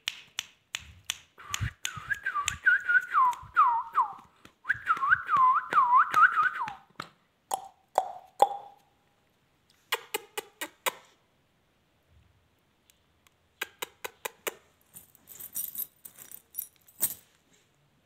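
Alexandrine parakeet whistling two runs of quick swooping notes, each a couple of seconds long, amid a scatter of sharp clicks. In the second half there are only bursts of clicks and taps.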